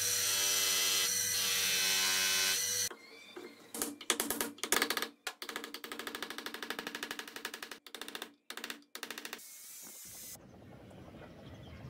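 Bench-motor buffing wheel whirring steadily as it polishes the steel face of a ball-peen hammer; it stops abruptly after about three seconds. A fast, even run of knocks follows for several seconds, about five a second. Near the end comes a brief angle-grinder cut.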